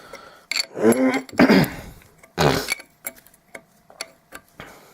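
A man grunts and huffs with effort while working loose a tight adjuster on a Corvair differential, with light clicks and clinks of metal tools and parts throughout.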